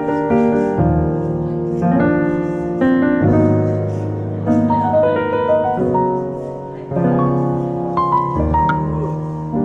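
Background piano music, a gentle melody over a steady bass line.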